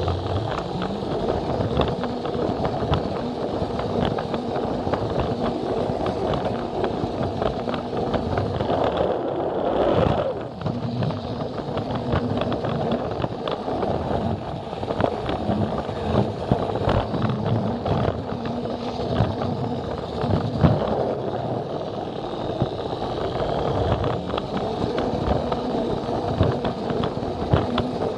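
Plarail toy train running on plastic track: a steady whirr from its battery motor and gears, under a constant rattle of clicks from the plastic wheels on the track.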